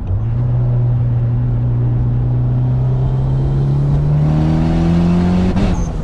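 Mitsubishi Lancer Evolution's 4G63 four-cylinder engine in a pull, revs climbing steadily for about five and a half seconds, then dropping suddenly and falling away.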